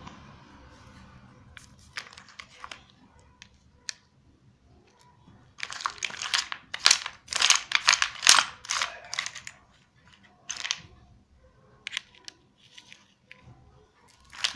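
Plastic pattern blocks clicking and clattering as they are handled and set down on a laminated sheet: scattered single clicks, with a dense run of rattling in the middle.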